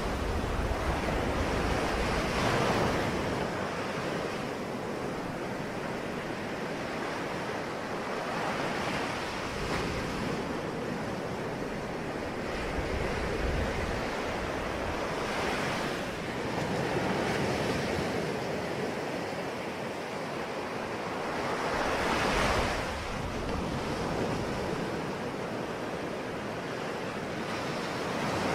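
Sea waves breaking and washing in, with a wave swelling and breaking about every six to seven seconds over a steady rush of surf.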